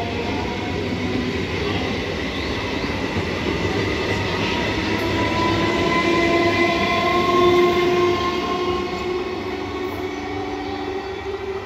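Electric multiple unit local train running past on the rails: a steady rumble of wheels on track, with whining tones that slowly shift in pitch. It is loudest about two-thirds of the way through, then eases off.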